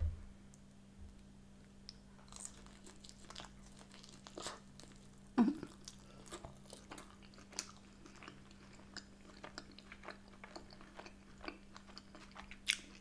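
A person chewing and biting stuffed-crust pizza, close up, with many small wet mouth clicks and a louder bite about five and a half seconds in. A faint steady hum runs underneath.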